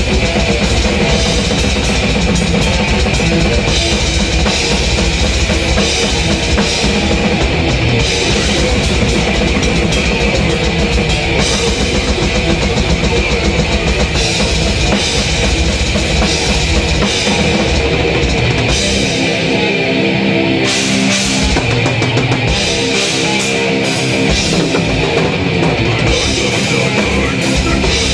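Heavy-metal drum kit played fast and dense, with rapid bass drum strokes and cymbals, over metal music. The bass drum drops out for a few seconds about two-thirds of the way through, then comes back.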